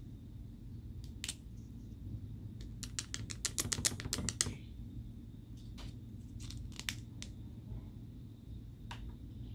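Slime being worked by hand, giving crisp clicking pops: scattered single clicks, with a quick run of about ten near the middle.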